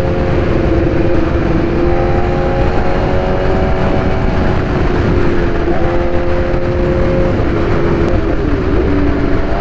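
Motorcycle riding at road speed: heavy wind rush over the onboard camera, with the engine's steady hum underneath. The engine note dips briefly about six seconds in and wavers again near the end.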